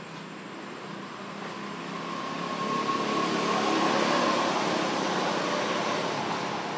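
A motor vehicle's engine passing by, growing louder to a peak about four seconds in and then fading.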